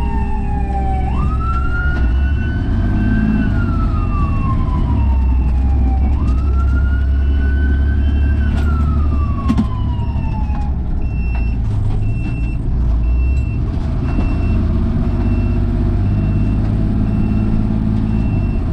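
Fire truck siren wailing, rising and falling twice, then stopping about ten seconds in, over the steady rumble of the ladder truck's engine. After that a high beep repeats evenly, the truck's reversing alarm.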